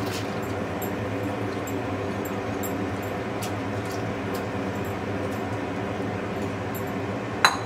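Red lentils poured into a pan of boiling water, the water bubbling with faint scattered pops over a steady low hum. There is one sharp click near the end.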